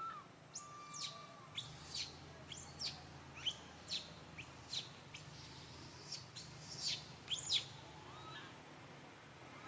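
Baby monkey screaming: a run of about eight shrill squeals, each rising and then falling in pitch. Fainter, lower coo-like calls come at the start and near the end.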